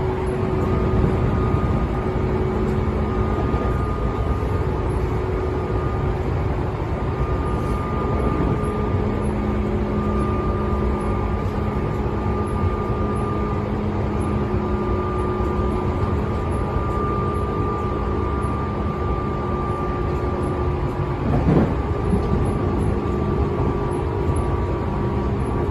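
Tobu 10000 series electric train running at a steady speed: a continuous rumble of wheels on rail with a constant, even-pitched hum from the traction motors and gears. A short sweep in pitch is heard about 21 seconds in.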